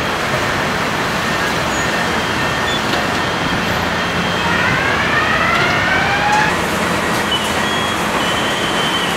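Steady din of a car assembly line: machinery, conveyors and tools running together, with a few rising machine whines about halfway through.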